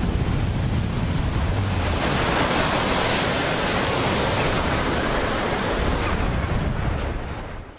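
Ocean surf washing and breaking on a sandy beach, a steady rushing noise, with wind rumbling on the microphone. It fades out near the end.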